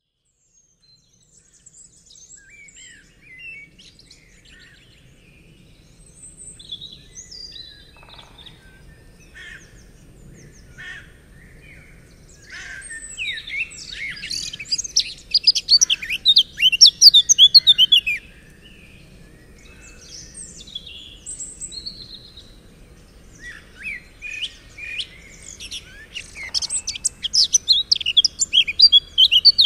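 Songbirds singing and calling: scattered short chirps, then a loud run of rapid song from about halfway that stops abruptly, and another near the end.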